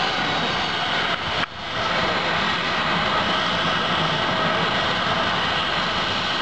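Jet airliner engines running, heard across the airfield as a steady, even rushing noise, with a brief sharp drop about a second and a half in.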